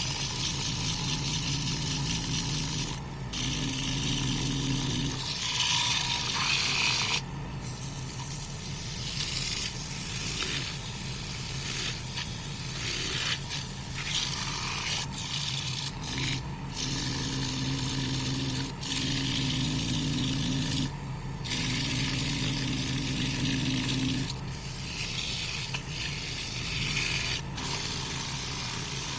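Wood lathe motor running with a steady hum while abrasive rubs against a spinning pine bowl, giving a loud scratchy hiss. The hiss breaks off briefly every few seconds as the sandpaper is lifted and put back.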